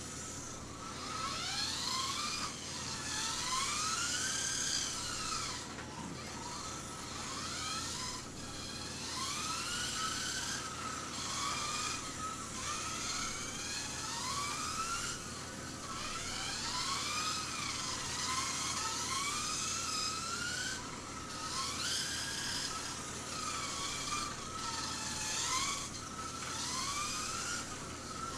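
Kyosho Mini-Z GTR 1:28-scale RC car's electric motor and gears whining as it laps a track, the high pitch rising and falling again and again as the throttle opens and closes through the corners.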